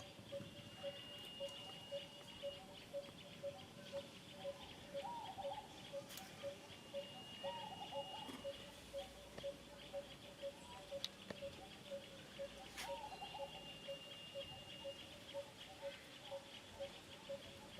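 Outdoor animal calls: a short note repeating evenly about twice a second over a steady high buzz, with a long level whistle recurring every five or six seconds.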